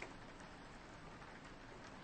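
Soft rain falling on a window: a faint, steady hiss with scattered drop ticks.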